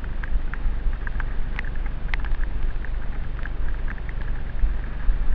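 Mountain bike riding fast down a wet, muddy dirt trail, heard through a helmet camera: steady wind rumble on the microphone and tyre noise, with scattered sharp clicks and rattles throughout.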